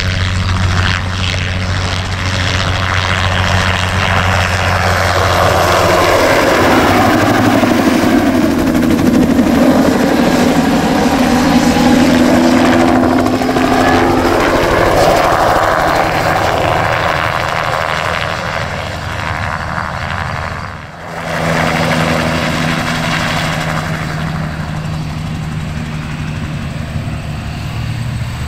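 Crop-dusting helicopter (a Bell 206-type) flying low passes, its rotor chop and turbine whine steady and loud. The pitch rises and falls as it sweeps past, and the sound drops briefly about two thirds of the way through.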